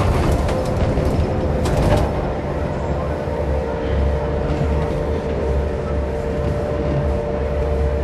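Von Roll gondola skyride heard from inside a moving cabin: a steady low rumble with a constant hum, and a brief clatter in the first two seconds.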